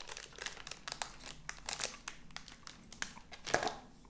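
Plastic candy wrapper crinkling as it is handled: a run of short crackles, the loudest a little past three seconds in.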